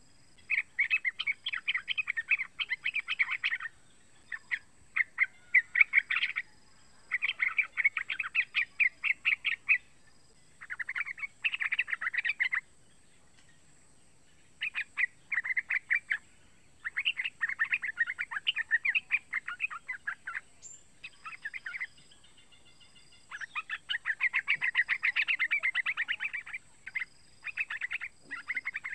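Young yellow-vented bulbul chattering in bursts of fast, rapidly repeated notes, each run a second or two long with short pauses between and a longer run near the end. This is the practice song of a young bird still learning to sing.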